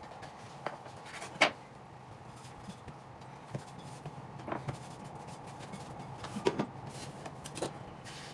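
Scattered light knocks and taps from cutting and handling dumpling dough on a wooden board and in a glass bowl, the sharpest about a second and a half in, over a low steady hum.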